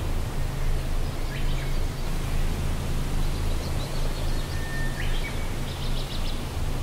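Steady outdoor background noise with a low hum, and a few faint high chirps about a second in and again between three and six seconds in.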